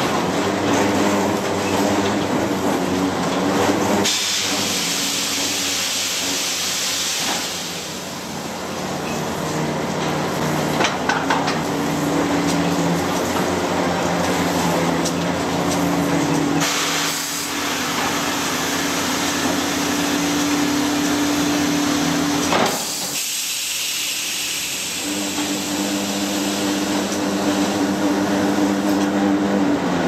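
Sawmill log haul-up chain conveyor running as it drags a log out of the mill pond: a steady mechanical clatter with a low machine hum that drops out and returns, and two spells of loud hissing.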